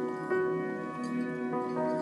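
Soft instrumental background music: held notes that change pitch about every half second.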